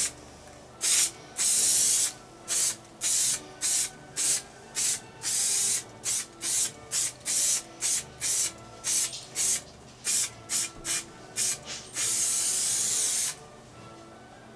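Aerosol spray adhesive hissing out of the can in a quick series of short bursts, about two a second, with one longer spray of about a second and a half near the end.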